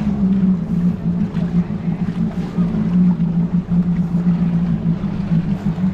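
Jet ski engine running steadily at low speed: a loud, even drone that wavers slightly in pitch, with water noise underneath.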